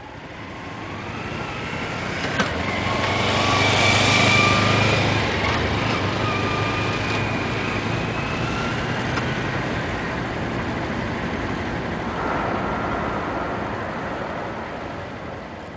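Motorcycle engine running as it is ridden slowly around the course, growing louder a few seconds in, then holding steady with small rises and falls in pitch, and fading near the end.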